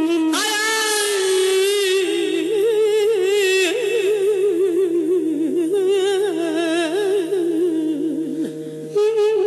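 Music: a single melodic lead line with wide vibrato and quick ornaments over a steady sustained drone.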